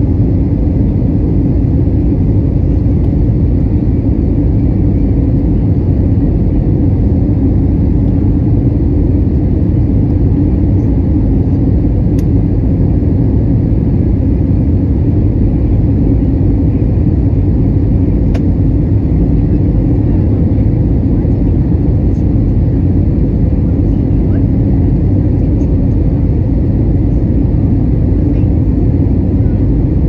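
Steady cabin noise inside an Airbus A320 on approach: a loud, even rumble of jet engines and airflow over the fuselage, heavy in the low end and unchanging throughout.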